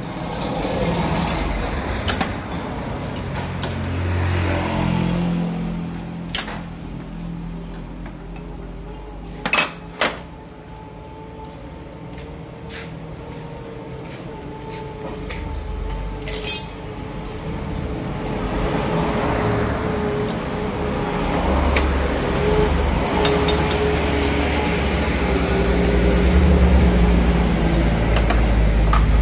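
An engine running steadily and getting louder toward the end, with three sharp metal clinks of a wrench: two close together about ten seconds in and one more a few seconds later.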